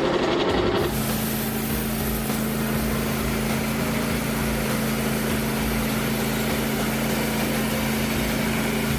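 Small gasoline engine of a Frontier OS27 portable band sawmill running steadily at an even speed, starting about a second in.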